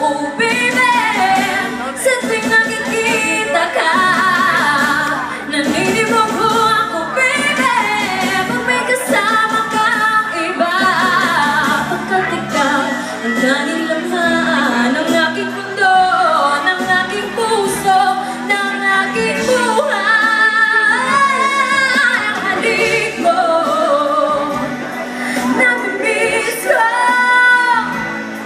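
Woman singing a song solo into a handheld microphone, her voice amplified through the sound system over musical accompaniment.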